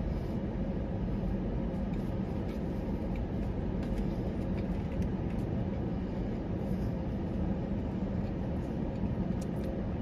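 Steady low rumble and hum of an idling car, heard from inside the cabin, with a faint steady tone. Small faint clicks of eating come through now and then.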